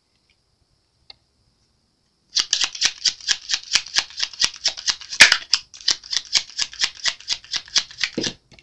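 A tarot deck being shuffled by hand: a fast run of papery card strokes, about seven a second. It starts a couple of seconds in and stops just before the end.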